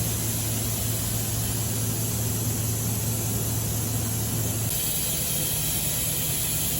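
OKK MDV55 vertical machining center running, a steady hum with a hiss over it. About two-thirds of the way through, the deep hum drops out and a slightly higher hum and a faint high tone take over.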